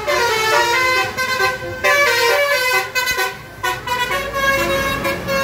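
Bus 'telolet' horn, a multi-tone musical air horn, playing a loud melody of tooting notes that step from pitch to pitch, with short breaks about two and three seconds in.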